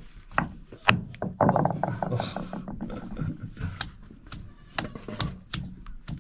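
A round hand stone knocking and grinding on a flat stone grinding slab (a Nepali silauto) as ginger and garlic are smashed. There are a few single knocks, then quick, irregular knocks from about four seconds in. A loud, drawn-out bleat-like cry sounds for about a second, starting about a second and a half in.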